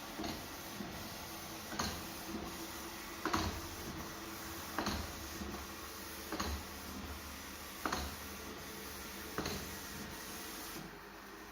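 Robot vacuum running steadily, with a short knock about every one and a half seconds; the running noise cuts off near the end.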